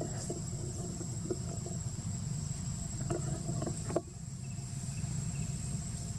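Insects droning in one steady high tone over a constant low rumble, with a few faint short clicks in the first four seconds and a sharp tick near four seconds.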